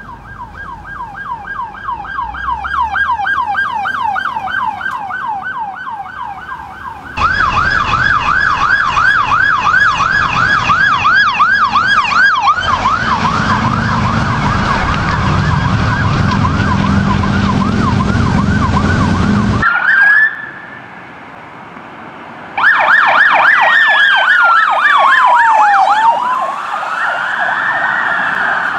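Police car electronic sirens on the rapid yelp tone, several different units in succession, the sound jumping in level at the cuts; for several seconds in the middle a low drone runs under the siren. Near the end a siren switches to one slow falling-then-rising wail.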